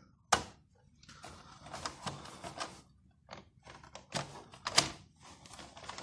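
Plastic remote-control toy cars being handled and moved by hand on a cloth-covered table: a few sharp clicks and knocks, the loudest about a third of a second in and another near the five-second mark, with soft rustling and smaller clicks between.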